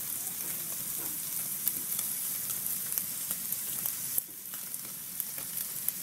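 Frying sizzle: a steady hiss with scattered sharp crackles and pops, dipping briefly a little after four seconds in.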